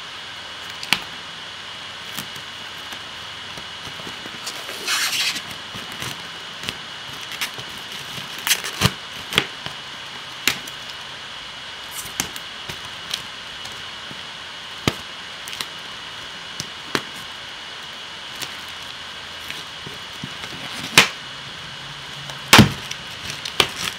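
Hands handling and picking at the packaging of a DVD box set: scattered clicks and taps, a short crinkling rustle about five seconds in, and two sharper knocks near the end, over a steady background hiss.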